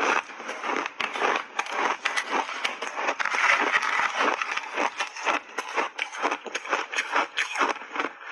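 Shaved ice crunched between the teeth in big bites: a fast, irregular crackle of many sharp cracks. A metal spoon scrapes through the ice in its container around the middle.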